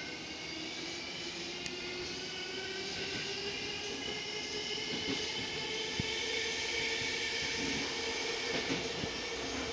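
Inside a Tokyo Metro 05 series subway car gathering speed: the traction motor whine rises slowly in pitch over the steady rumble of wheels on rail, with a few short knocks.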